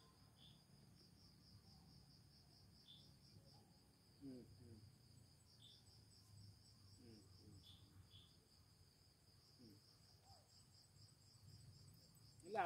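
Insects chirping faintly in a steady, fast pulsing trill, with a brief louder sound just before the end.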